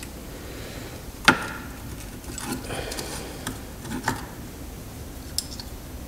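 Small metal clicks and clinks of parking brake shoe hardware being handled and fitted: the shoe, hold-down pin and spring against the rear backing plate. A sharp click about a second in is the loudest, with lighter clinks around two and a half and four seconds, over a steady low background hum.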